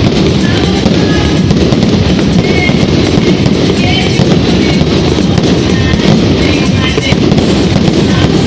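Fireworks going off in a dense, continuous barrage of bangs and crackling, with music playing along.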